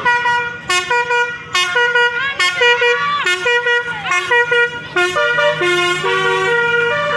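Basuri melody horn on an odong-odong street kiddie train, playing a tune of short stepped notes, with a steady low hum underneath.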